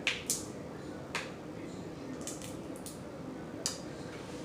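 Close-up eating sounds of a person eating steamed blue crab: about half a dozen short, wet smacks and clicks of the mouth chewing, two sharp ones right at the start and another a little before the end.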